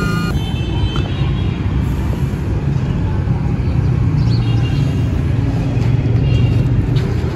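Steady low outdoor rumble, with faint thin high tones coming and going a few times.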